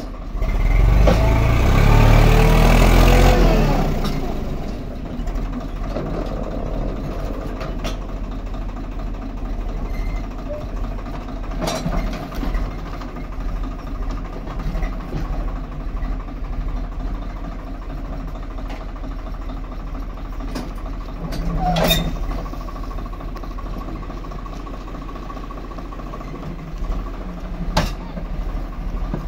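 Swaraj 744 FE tractor's three-cylinder diesel engine revving hard for a few seconds near the start, its pitch rising and falling as it pulls a sand-laden trolley, then running steadily at lower revs. A few short sharp knocks come through later on.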